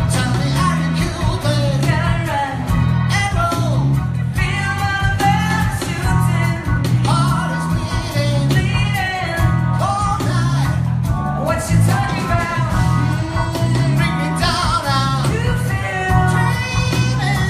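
Live band playing a rock-pop song: a singer over guitar and a repeating bass line.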